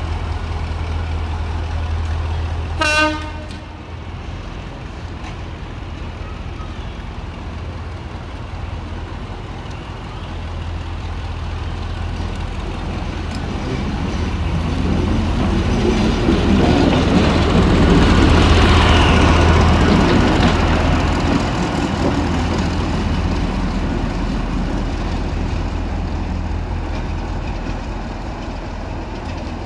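Heritage diesel locomotive running with a steady low engine drone, giving one short horn toot about three seconds in. It then passes close by, the engine and wheel noise swelling to a peak in the middle and fading away.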